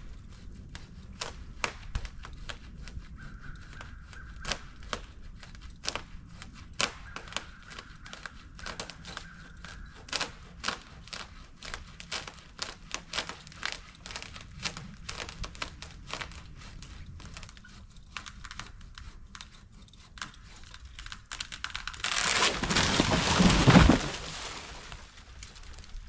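A long run of irregular sharp snaps and clicks of wood under strain and cutting. Then, about 22 seconds in, a loud crash lasting about two seconds as a dead tree breaks free and falls through the branches to the ground.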